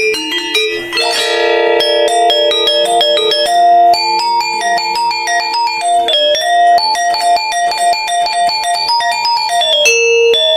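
Balinese gangsa, a bronze-keyed gamelan metallophone, playing the polos part of a gong kebyar piece: a quick run of struck notes that ring on and overlap.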